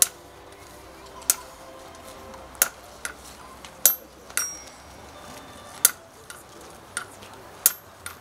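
Sharp metallic clinks, one every second or so in a fairly even beat, some leaving a brief high ring, like metal striking metal.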